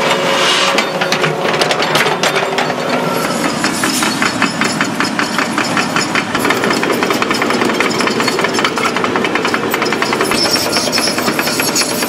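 Construction machinery running with a rapid, even hammering that settles into a steady rhythm about three seconds in.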